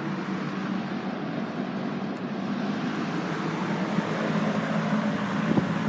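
Penncrest 9711 metal-bladed box fan running on high speed: a steady rush of air over a low motor hum.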